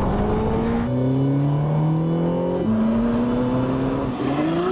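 Ferrari sports car engine accelerating hard, its pitch climbing steadily, dropping at an upshift about two and a half seconds in, then climbing again.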